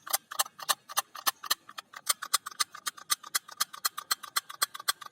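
Rapid, even ticking, about seven or eight clicks a second, from a bicycle's freewheel coasting.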